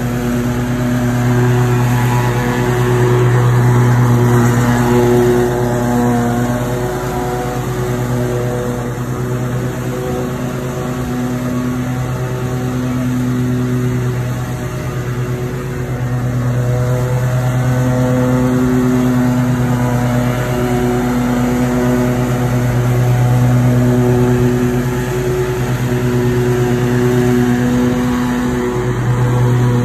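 John Deere EZtrak zero-turn riding mower's engine running steadily under mowing load, getting louder and fainter as the mower moves nearer and farther away.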